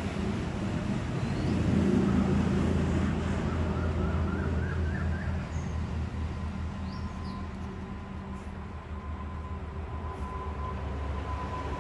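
A steady low mechanical hum, like a running engine. A faint wavering tone rises through the first half, and a thin steady tone holds through the second half.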